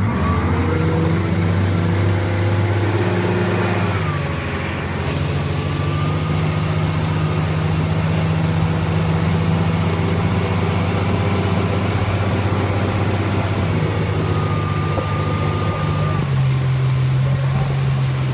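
Motorboat engine opening up to pull a water skier up out of the water: its note climbs over the first second, then holds steady at towing speed, with small shifts in pitch about four seconds in and again near the end. Rushing water and wind noise run underneath.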